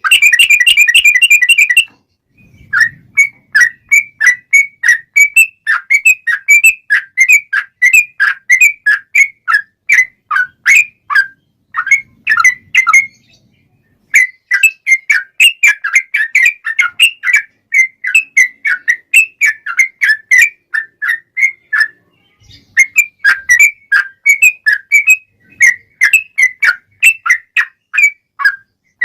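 Yellow-vented bulbul (trucukan) singing a long, fast 'ropel' run: a dense rapid trill to open, then long strings of short, quick whistled notes, mostly falling in pitch, broken by a couple of brief pauses.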